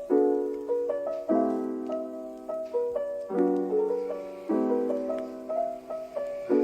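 Background music: a gentle piano piece, chords struck about once a second and left to fade, with lighter notes between them.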